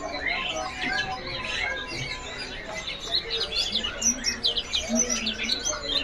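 Many caged songbirds chirping and singing at once in overlapping calls, among them a young blue-winged leafbird (cucak cungkok) in full song. The chirping grows denser in the second half.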